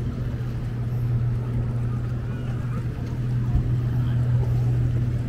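Boat engine idling with a steady low hum.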